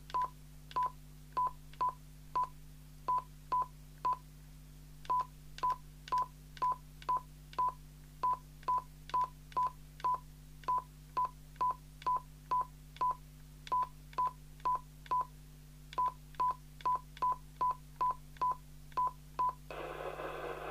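Jopix GS-60 CB radio giving a short key beep for each press of the microphone's up/down channel buttons, the same tone repeated about two times a second as it steps through the channels. Near the end the beeps stop and a steady hiss of received signal comes from the radio's speaker.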